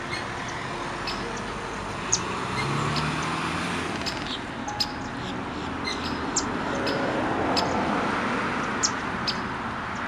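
Steady road-traffic noise with birds chirping briefly now and then.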